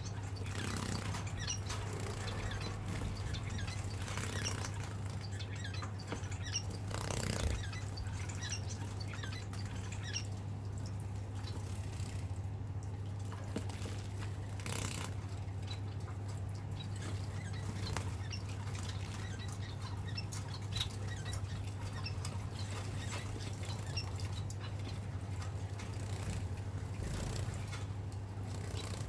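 Society finches bathing: brief bursts of splashing and wing-fluttering, with short high chirps scattered throughout, over a steady low hum.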